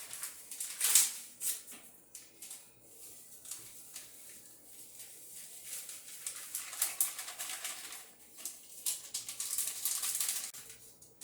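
Sizzling and crackling of food frying in hot grease, with louder bursts of sizzle about a second in and again near the end.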